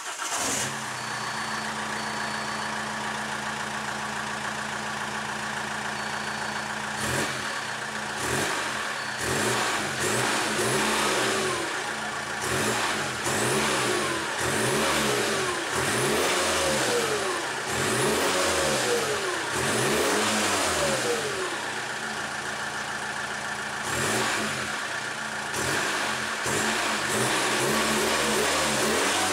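Alfa Romeo 147 1.9 JTDm 8-valve turbodiesel running through a downpipe and an open exhaust with no silencer, the particulate filter and catalytic converter kept. It idles steadily, then from about seven seconds in it is revved again and again in short rises and falls, about one every two seconds.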